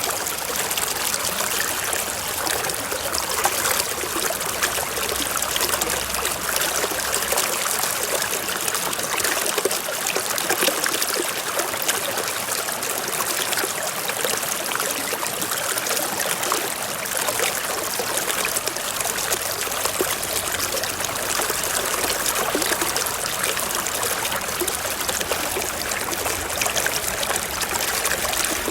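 Small stream of water trickling and running steadily over rocks, an even rushing with no breaks.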